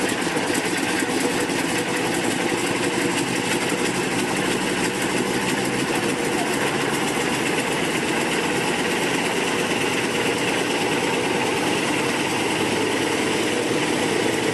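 An engine running steadily, a dense unchanging drone.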